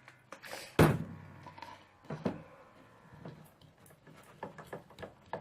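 Clear-glue glitter slime being worked during activation: soft squishing and small clicks, with one loud knock about a second in.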